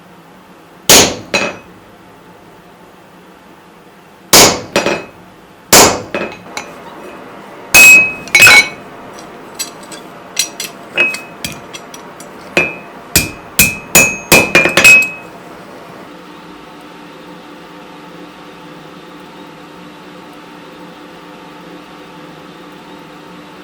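Rounding hammer striking hot steel on an anvil: several heavy blows, mostly in pairs, then a quicker run of lighter blows, many leaving a short ringing note from the anvil. The hammering stops about fifteen seconds in, leaving a steady low hum.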